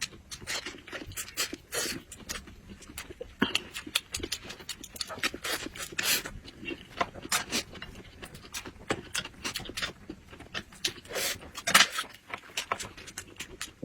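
Close-up eating sounds: chewing and mouth smacking, a fast irregular run of wet clicks and crackles, with a few louder smacks about six seconds in and again near the end.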